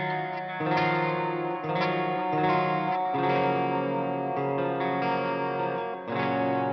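Electric guitar, an ESP LTD JM-II fitted with Monty's Bethnal Green pickups, played through an Eventide H90 chorus-and-reverb patch: ringing chords held and changed three times.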